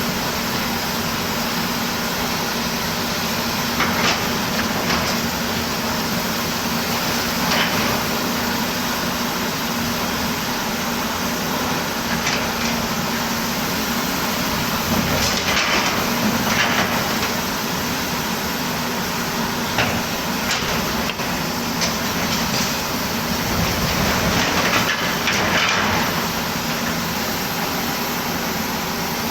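Volvo excavator's diesel engine running steadily, with occasional short metallic clanks and scrapes from the bucket and arm.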